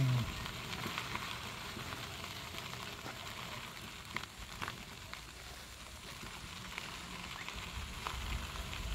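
Mobility chair's tyres rolling over a gravel dirt trail: a steady crackling hiss with a few faint clicks and a low rumble underneath.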